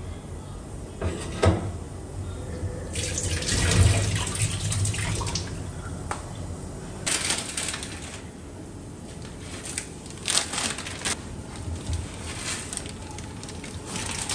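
Water running in a kitchen in a few short bursts that start and stop abruptly, with a sharp knock about a second and a half in and a few more light knocks in between.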